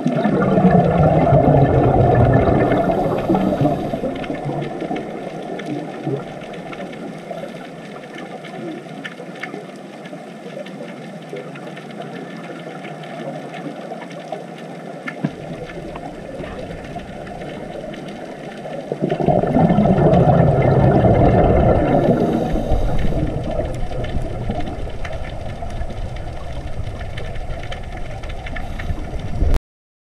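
Underwater sound recorded on a scuba dive: a steady low rushing hiss. Twice, at the start and again about 19 seconds in, it swells for a few seconds into a loud bubbling gurgle from a diver's exhaled bubbles. It cuts off suddenly near the end.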